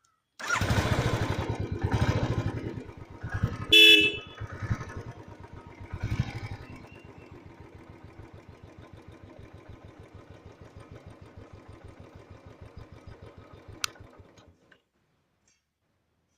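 Royal Enfield motorcycle engine starting and revving several times, with a short blast of the horn about four seconds in. It then idles with an even, rapid thumping pulse and cuts off near the end, a sharp click coming just before it stops.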